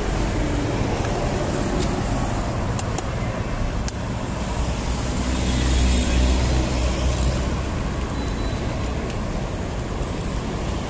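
Road traffic noise, a steady rumble of passing vehicles, with one passing louder around the middle.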